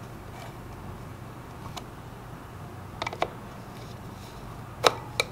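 Screwdriver tightening the screws on a motor's terminal-box cover plate: a few small metallic clicks and taps, the loudest near the end, over a faint steady low hum.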